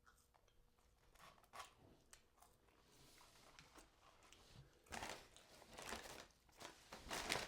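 Fast-food paper and cardboard packaging being handled and crinkled as the items are unpacked, in scattered light crackles that turn into louder rustling bursts in the second half.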